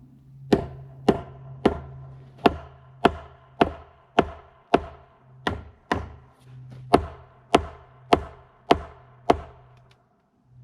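Hammer blows striking in a steady rhythm, about sixteen sharp strikes each with a short ring, typical of nailing a brace. The blows stop shortly before the end.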